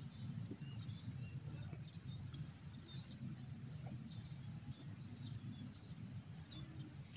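Insects buzzing steadily, high in pitch, with scattered faint bird chirps over a low rumble.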